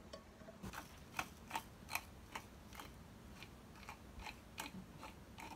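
Hand-held grinder grinding sea salt: a faint, regular run of short clicks, about two or three a second, starting just under a second in.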